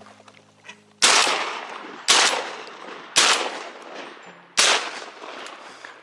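Four shotgun shots at flying ducks, each a sharp crack with a trailing echo, about a second apart, the last after a slightly longer pause.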